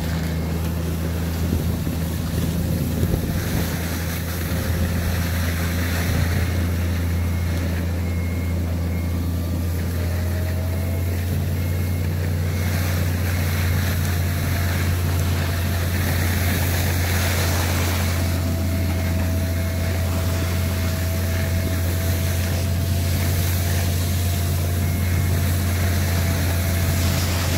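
Snowmobile engine running at a steady drone while travelling over snow, with wind noise on the microphone.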